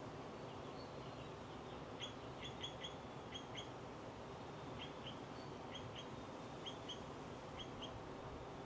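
A bird giving short, high chirps, mostly in quick pairs, repeated every second or so, over a steady low rushing background.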